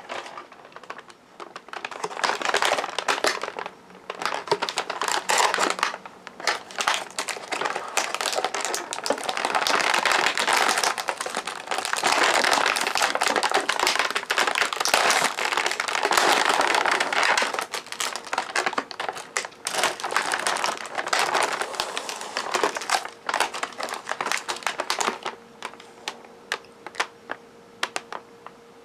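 Plastic cookie packaging crinkling and crackling as it is handled and opened, in bouts with pauses between.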